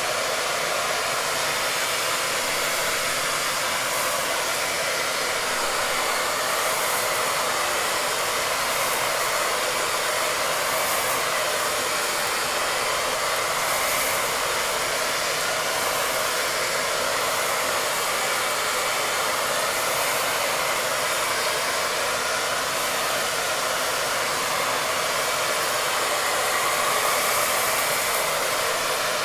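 Wavytalk hair dryer with diffuser running continuously, a steady rushing blow of air over the hum of its motor.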